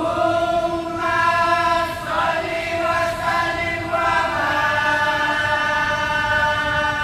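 Voices of a kompang troupe chanting in unison without drums, holding long notes that change pitch a couple of times.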